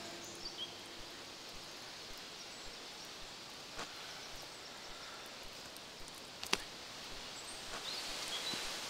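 Quiet forest ambience: a steady outdoor hiss with a few faint, high bird chirps near the start and again near the end, and a few small clicks, the sharpest about six and a half seconds in.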